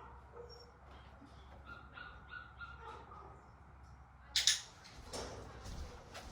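A puppy giving a few short, soft whines in quick succession about two seconds in, a little whine while it holds a down-stay as its handler walks away. A louder brief knock or rustle follows about four seconds in.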